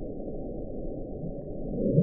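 Low, muffled rumbling drone of dark ambient sound design, with a louder whoosh near the end that sweeps down in pitch and back up.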